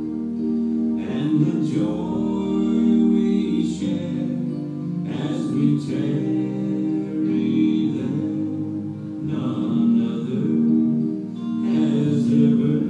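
A hymn sung over sustained keyboard chords, the vocal phrases coming about every two seconds.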